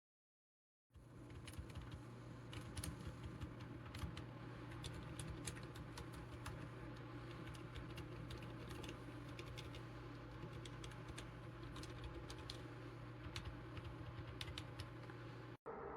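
Typing on a GK GAMAKAY TK75 V2 75% silent mechanical keyboard: a fast, uneven run of soft key clicks over a steady low hum, starting about a second in.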